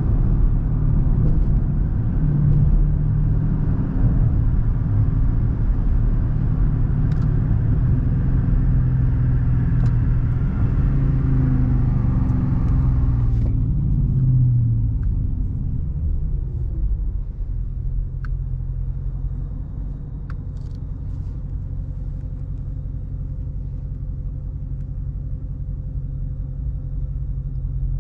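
Dodge Charger R/T's 5.7-litre V8 engine and road noise while driving. About halfway through, the engine note falls as the car slows and the road noise stops. After that the engine idles steadily, with a low hum.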